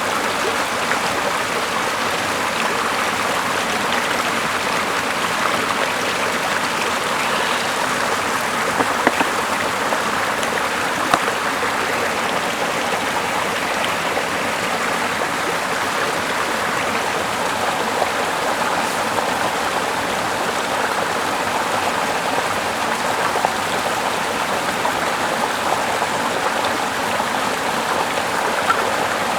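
Steady rush of running water, even and unbroken, with a few small clicks.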